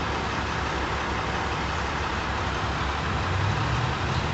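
Steady background noise, an even hiss over a low hum, with a low pitched hum growing louder near the end.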